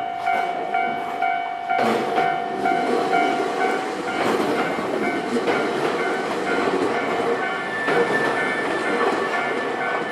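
Japanese railway level-crossing alarm ringing about twice a second. About two seconds in, a Nankai electric train starts passing over the crossing, its running noise broken by occasional wheel knocks; the alarm fades under it.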